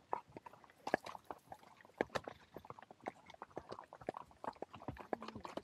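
Hoofbeats of a ridden horse on a trail: short irregular clip-clop strikes, several a second.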